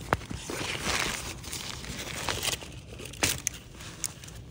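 Fabric backpack rustling and crinkling as it is handled and searched inside, with a few short clicks and knocks.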